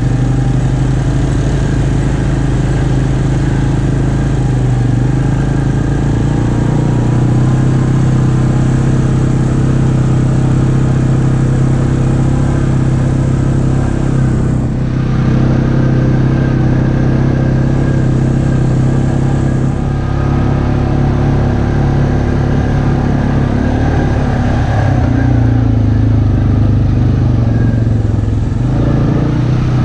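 ATV engine running steadily at trail-riding speed, heard from on board, with a brief dip in engine sound about halfway through and again a few seconds later as the throttle eases off.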